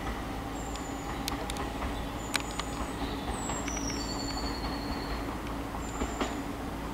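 Class 375 Electrostar electric multiple unit running slowly over curved pointwork: a steady electric hum, with scattered sharp clicks of the wheels over the points and several brief high squeals.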